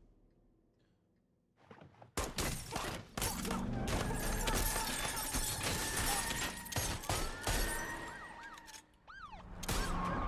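Near silence for about two seconds, then a dense, rapid volley of gunshots with glass shattering as a police cruiser's windshield and windows are shot out, glass spraying inside the car. Near the end come a few short whistles that rise and fall in pitch.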